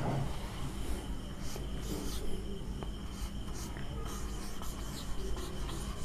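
Marker pen squeaking and scratching on a whiteboard in short strokes as a word is written, over a steady low hum.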